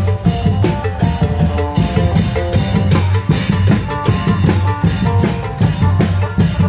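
Isan long-drum (klong yao) ensemble playing live: fast, dense drumming with deep drum strokes and cymbal hits under a repeating melodic line, in a lively dance rhythm.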